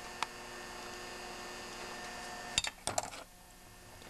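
Steady electrical hum, with a single click near the start and a quick cluster of sharp clicks and knocks about two and a half to three seconds in, after which the hum dips briefly.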